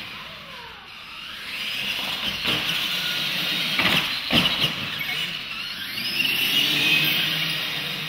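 Electric R/C monster trucks racing, their motors and gears whining and rising and falling in pitch, with sharp thumps about four seconds in as a truck hits the ramp and lands.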